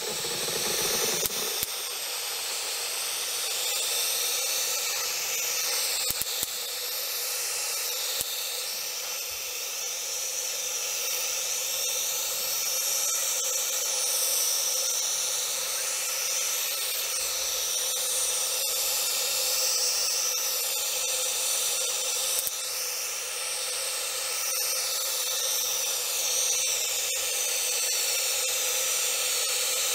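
Spray paint hissing steadily as it is sprayed onto the lantern's metal parts, the hiss shifting a little in tone as the spray sweeps across them.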